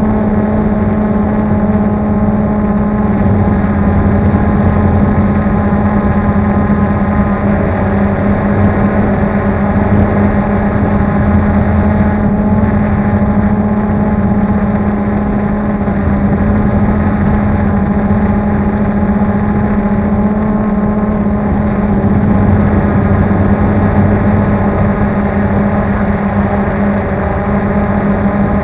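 Multirotor drone's electric motors and propellers, heard close from the aircraft itself: a loud, steady hum with a strong low tone and higher overtones over a rough rumble, unchanging as it slowly climbs.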